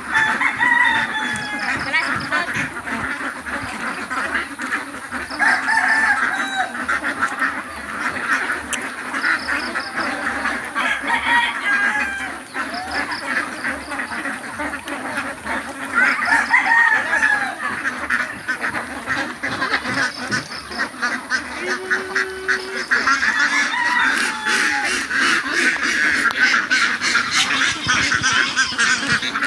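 A large flock of domestic itik ducks quacking and chattering, many calls overlapping without a break, growing louder near the end.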